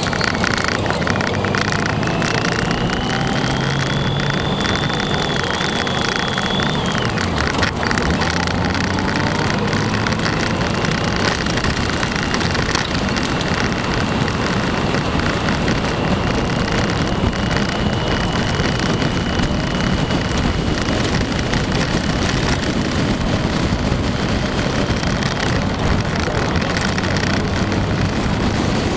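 Motorcycle engine running under way, heavily overlaid by wind rushing over the microphone. The engine pitch climbs over the first few seconds and drops about seven seconds in, then holds steady while cruising.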